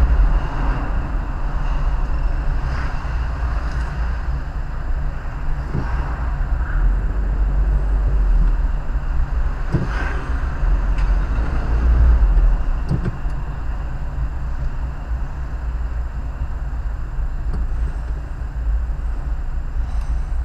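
Moving vehicle: a steady low engine and road rumble, with a few brief knocks.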